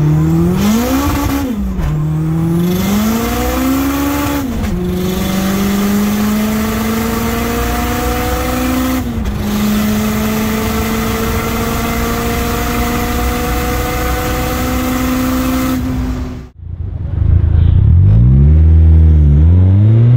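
Honda VTEC four-cylinder engine at full throttle, heard from inside the car, its note climbing through the gears with short dips at the upshifts about 2, 4.5 and 9 seconds in. About 16 seconds in it switches to a louder outside recording of a silver Honda Civic's engine revving up and down in quick rises and falls.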